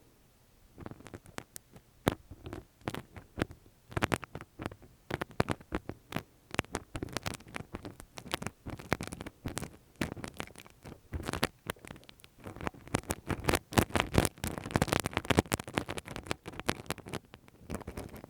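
ASMR ear-cleaning sounds: close, dense crackling scratches and rubbing on the microphone, starting about a second in and growing busier near the end.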